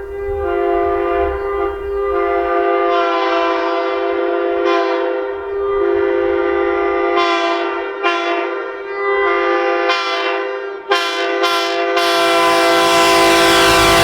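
Several air horns sounding together in one sustained chord of several notes. Shorter blasts come and go over it, and a louder, fuller blast starts about twelve seconds in.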